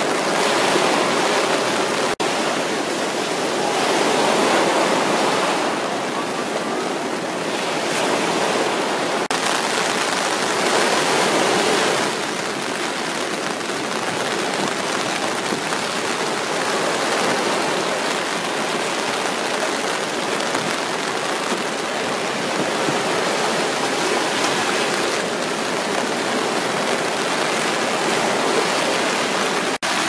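Rough surf stirred up by an approaching typhoon, breaking and washing up a sandy beach: a steady rush of surf that swells louder with the bigger breakers.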